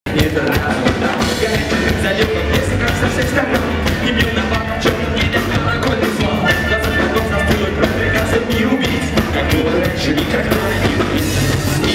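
A live rock band playing loudly, with drums and electric guitar.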